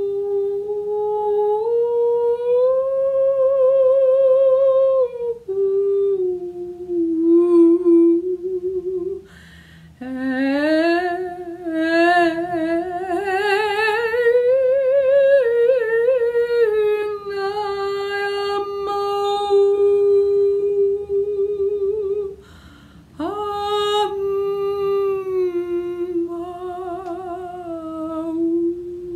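A woman's wordless vocal toning for sound healing: long sung tones with a wavering vibrato, gliding up and down in pitch. There are two short breaks for breath, about a third of the way in and about three-quarters through.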